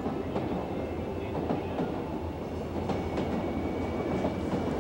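Subway train running, heard from inside the carriage: a steady rumble of wheels and running gear, with scattered clicks and knocks at irregular moments.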